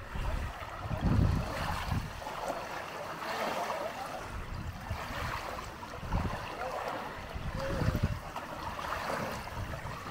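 Choppy open water lapping and splashing, with gusts of wind buffeting the microphone about a second in and again near the middle and toward the end.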